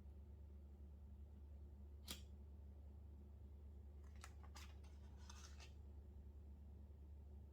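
Sparse, faint keyboard keystrokes over a low steady hum: one click about two seconds in, then a short cluster of clicks and a brief rustle between about four and six seconds in.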